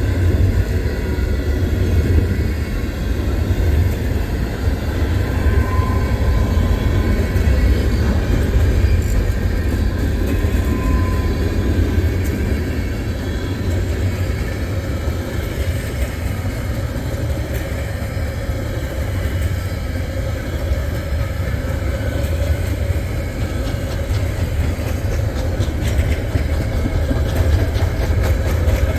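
Freight train cars rolling past on the rails, first tank cars and then flatcars carrying trailers, with a steady low rumble of wheels on track. Two faint brief squeals come in the first half, and a run of clicks comes near the end.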